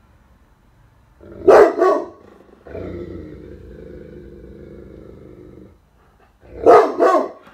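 Black Russian Terrier barking in deep double barks, once about a second and a half in and again near the end, with a low growl of about three seconds between them. It is alert barking at something out of sight.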